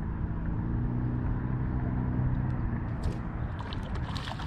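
A motor's steady low hum, fading somewhat about three seconds in, with a scatter of short sharp clicks near the end.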